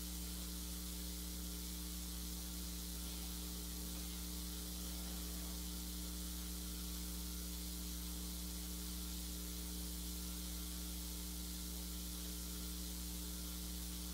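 Steady low electrical hum with a constant hiss above it, unchanging and with no other sound.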